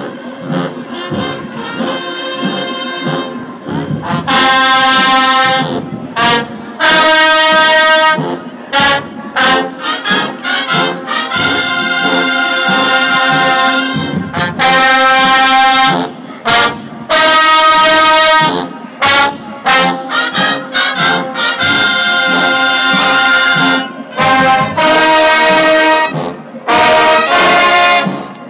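Marching band brass section, trombones and trumpets, playing loud full chords held for a second or two, alternating with short punched hits. The band gets much louder about four seconds in.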